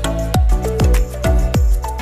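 Electronic channel-intro music with a deep kick drum that drops in pitch on each beat, about two beats a second, under a synth melody.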